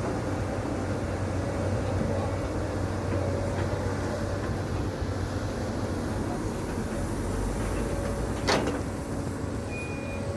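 Caterpillar 320D L excavator's diesel engine running steadily with a low drone, and one sharp knock near the end.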